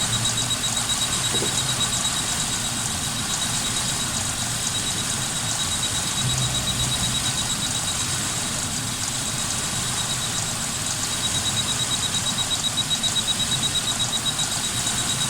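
The 2.5-litre V6 of a 1999 Suzuki Grand Vitara idling with a steady, slightly uneven pulse. The engine has a misfire that is later traced to the number 2 injector. A faint, fast high-pitched pulsing tone runs over the engine sound.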